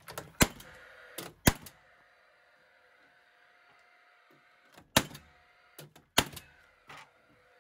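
Cordless nail gun driving nails into shiplap pine boards: four sharp shots in two pairs, with fainter knocks between them and a faint steady hum underneath.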